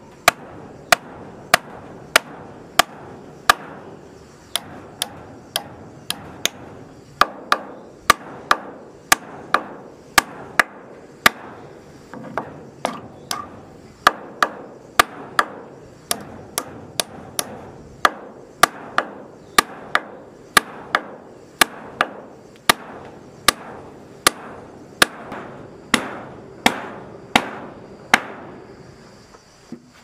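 Hammer driving a nail into a timber roof beam: a steady run of sharp blows, a little under two a second, that stops shortly before the end.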